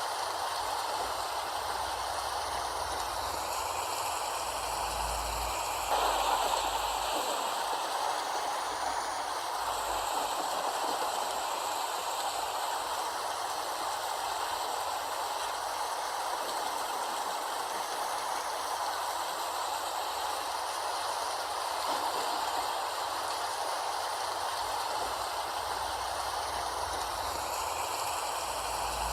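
Steady rain, an even hiss of falling water, with a brief swell in level about six seconds in.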